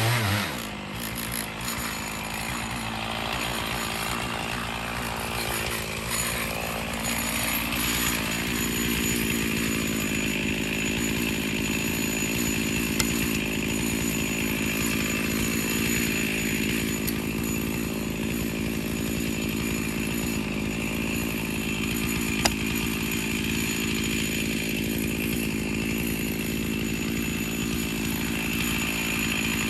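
Chainsaw running steadily at high speed while ripping lengthwise through a cedar log to mill a 2-inch slab. There is a brief sharp click about halfway through and another near two-thirds of the way in.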